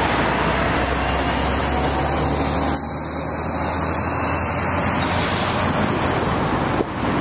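Steady road traffic noise from the overpass, a truck among it, over a low steady diesel engine rumble from the approaching locomotive.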